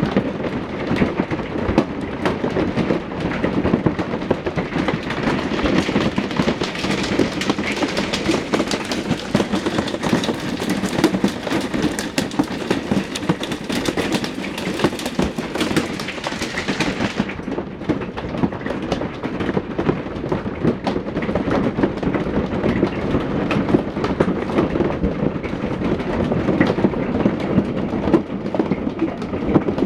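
Heavy hail pelting hard surfaces: a dense, continuous clatter of hailstone impacts. A little over halfway through the sound turns duller as its highest treble drops away.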